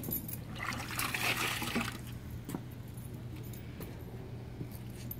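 A sponge dipped into a plastic bucket of water and squeezed out, splashing and dripping for about a second, about a second in, over a steady low hum.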